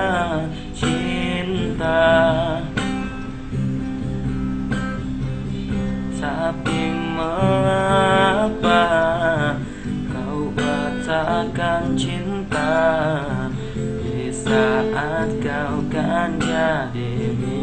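A man singing an Indonesian-language ballad in long held lines with vibrato, over strummed acoustic guitar chords.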